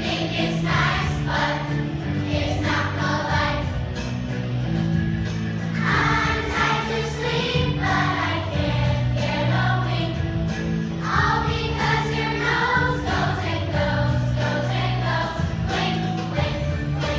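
A choir of young children singing a song in phrases, over an instrumental accompaniment with steady low notes.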